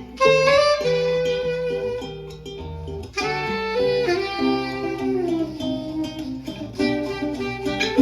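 Live instrumental music: a plucked acoustic guitar with bass notes under a held, smoothly moving melody line. The playing thins out briefly a little past the middle, then picks up again.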